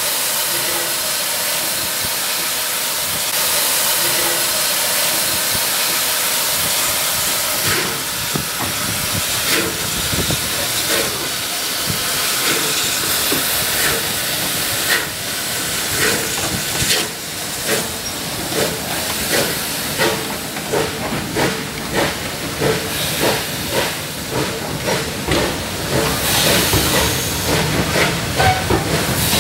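Bulleid West Country class steam locomotive: a steady hiss of steam, then exhaust beats that start about eight seconds in and quicken to about two a second as it gets under way, with steam hissing throughout.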